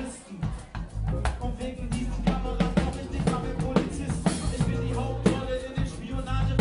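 Live drum kit playing a groove with kick, snare and rimshots over a bass line. The band drops out almost completely at the start and comes back in about a second later.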